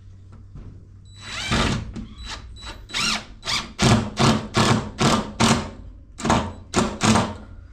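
Power drill driving screws in a run of short trigger bursts, about two a second, with a brief pause near the six-second mark.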